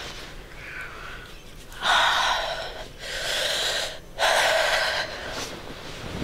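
A woman breathing out hard three times in a row: loud, breathy exhalations of about a second each, without voice.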